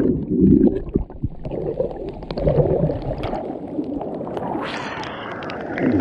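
Muffled rushing and gurgling of a swollen, muddy river heard with the microphone underwater. About four and a half seconds in, the microphone comes back up and the water's splashing turns clear.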